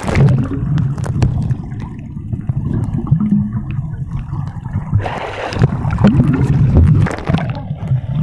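Water heard through a camera held underwater: a muffled low rumble of moving water with scattered small clicks, and a brief brighter rush about five seconds in.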